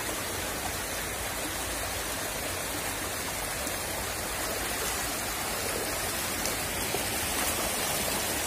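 Shallow, fast-flowing river water rushing over and around rocks: a steady rush of moving water.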